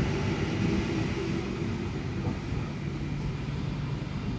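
Sydney Trains Waratah double-deck electric train running along the platform and drawing away, a steady rumble with a low hum that slowly fades.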